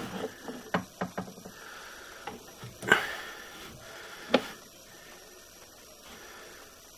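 A few scattered knocks and clicks from handling the sewer inspection camera and its push cable, the loudest about three seconds in, then a faint steady hiss.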